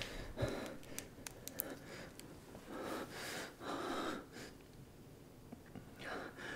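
A man's heavy, distressed breathing: a few gasps and sniffs with pauses between them, his breath catching as if near tears.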